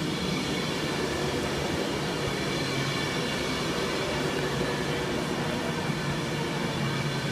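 Class 390 Pendolino electric train pulling into the platform. Its wheels on the rails and its traction equipment make an even, steady noise with a low hum and a few faint high whines.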